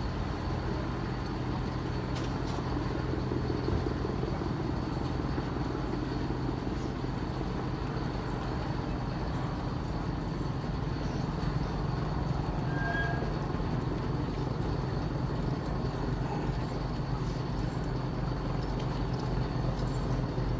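Steady low mechanical rumble of engines, unchanging throughout, with a faint high steady tone above it.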